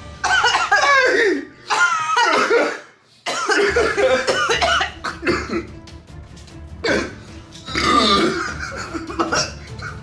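People laughing and coughing over steady background music; everything drops out for a moment about three seconds in.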